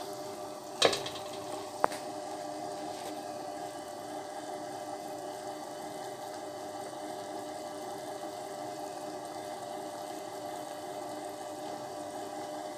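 A pot of water with calf's feet in it boiling steadily under a thick foam. Two sharp taps come about one and two seconds in, the first the loudest sound.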